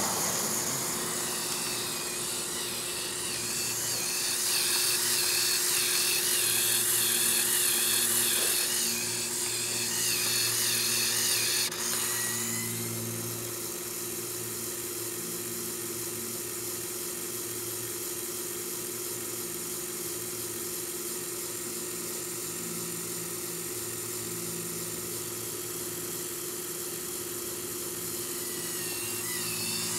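Small electric motor of a Lego Technic 8258 Crane Truck whining through its plastic gears. It is louder with a wavering pitch for about the first twelve seconds, then drops to a steadier, quieter hum.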